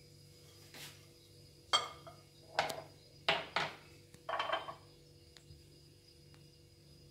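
A large glass mixing bowl being set down and shifted on a cloth-covered granite countertop: a few short knocks and scrapes, the last a little longer, between about two and five seconds in.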